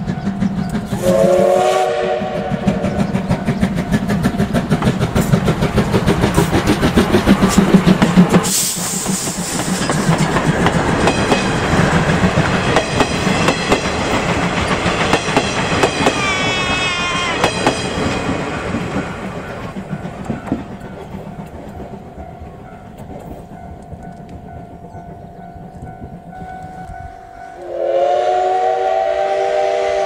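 Double-headed steam locomotives, C11 and C12 tank engines, passing close with their coaches: a short steam-whistle blast about a second in, then rapid rhythmic beats and the clatter of the coaches going by, fading after about twenty seconds. Near the end comes another long steam-whistle blast.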